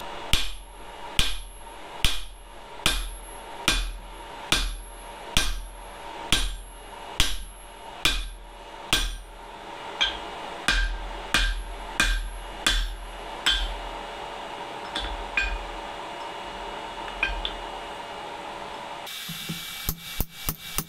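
Hand hammer striking a handled top tool held on hot steel on an anvil: ringing blows about once a second. After about fourteen seconds they give way to a few lighter taps.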